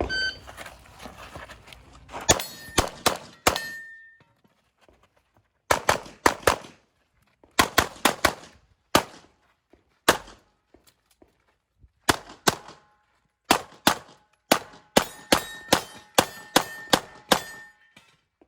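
Shot-timer beep, then a competition string of pistol fire from a 9mm CZ Shadow 2: shots in quick pairs and bursts with short pauses between target arrays. Steel targets ring after hits, most clearly near the end.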